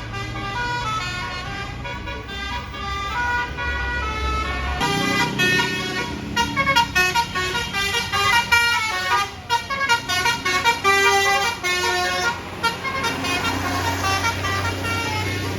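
A bus's Basuri telolet horn playing a melody of quick stepped notes. A low engine hum runs underneath for about the first five seconds; after that the notes grow louder and come in short, rapid bursts.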